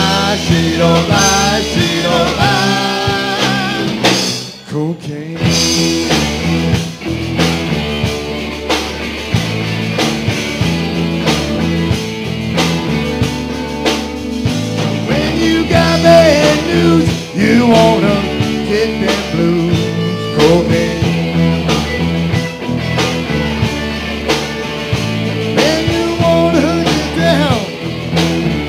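Live rock band playing electric guitars with a drum kit. The band cuts out briefly about five seconds in, then comes back in.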